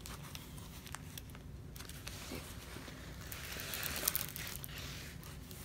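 Rustling and crinkling of a rolled diamond-painting canvas being unrolled by hand, with scattered light clicks; the rustle swells about three seconds in and peaks near four seconds.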